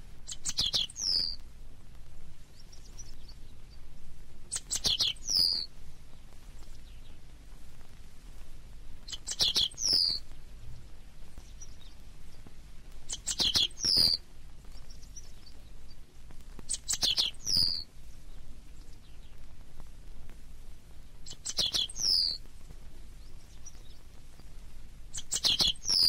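Jankowski's bunting (Emberiza jankowskii) singing: seven short, high song phrases of about a second each, repeated about every four seconds, each ending in a falling note.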